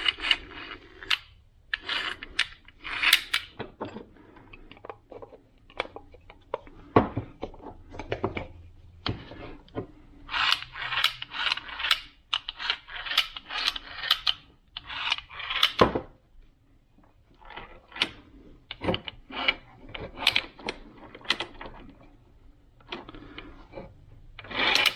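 Small parts and tools being handled: sharp clicks and stretches of rattling and scraping, in bursts with short pauses between them.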